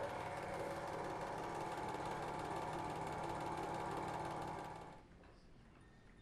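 Film projector running: a steady, fast mechanical rattle that fades out after about five seconds.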